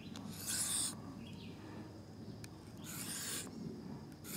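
Knife blade drawn across an oiled Arkansas whetstone in slow, even slicing strokes: a clear rasping stroke about half a second in, a fainter one, and another around three seconds in.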